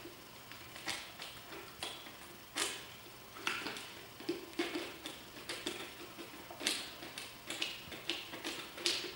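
Alaskan Malamute puppy licking and gnawing at an empty plastic peanut butter jar held under its paw: irregular clicks, crackles and knocks of the plastic, one or two a second.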